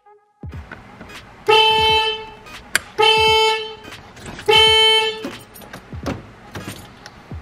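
Car horn sounding three short blasts, each about half a second long and about a second and a half apart. Light clicks and knocks come between the blasts.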